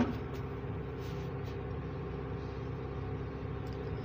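Steady low mechanical hum of a motor running in the background, with a short knock at the very start and a few faint clicks as a spoon works in an opened tin of ghee.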